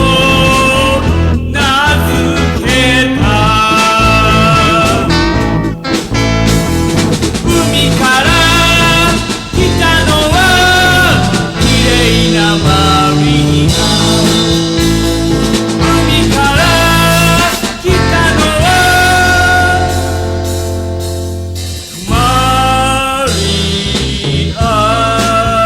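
Background music: a blues-rock song with slide guitar and a steady bass line, with brief breaks a few times.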